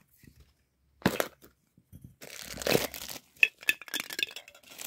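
A sharp click about a second in, then a plastic bag holding a Funko Soda figure crinkling and crackling as it is handled.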